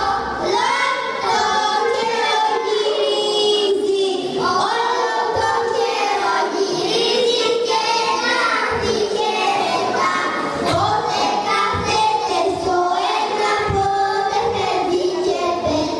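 A group of young girls singing a song together into microphones.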